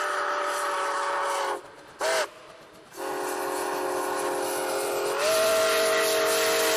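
Multi-tone chime train whistle blowing with a hissing edge: a long blast that breaks off, a short toot about two seconds in, then a long blast again that steps up slightly louder and higher about five seconds in.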